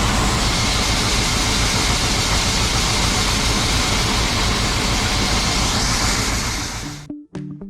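A farm machinery engine running steadily under load. It fades out near the end, when plucked-string music cuts in.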